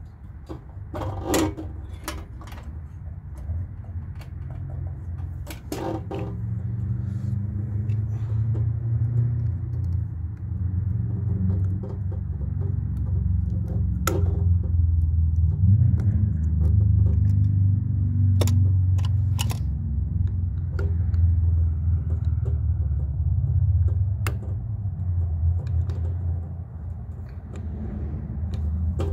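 A low, uneven rumble that grows louder after the first few seconds, with scattered sharp clicks and clinks of pliers and small fuel-line and pump parts being handled.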